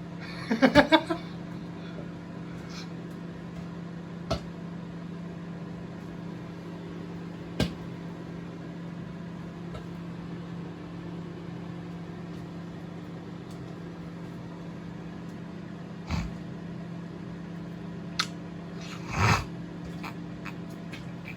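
Microwave oven running: a steady hum from the magnetron transformer and fan while food heats. A short cluster of clicks comes about a second in, with a few single clicks later on.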